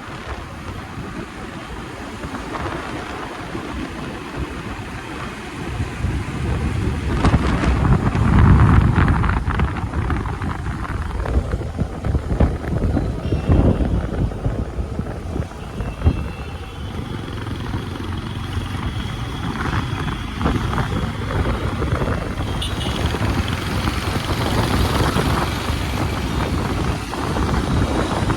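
Road traffic and a running vehicle engine, with wind buffeting the microphone. The low rumble swells about seven to ten seconds in.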